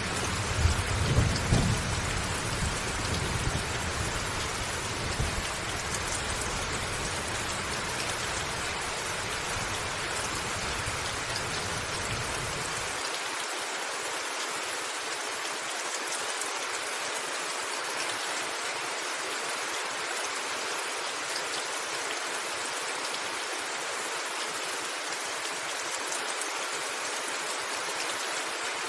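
Steady rain pattering on a rooftop, with low rolling thunder underneath that swells about a second in. The thunder rumble cuts off suddenly about halfway through, leaving only the rain.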